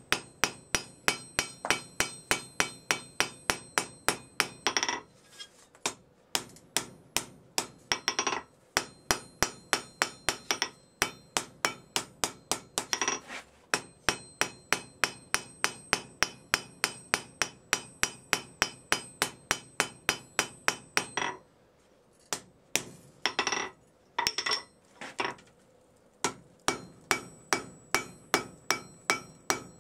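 Hand hammer striking a red-hot steel bar on an anvil, about three blows a second, with the anvil ringing between blows. The hammering is broken by a few short pauses. The bar is a railroad spike being forged into a tanto blade.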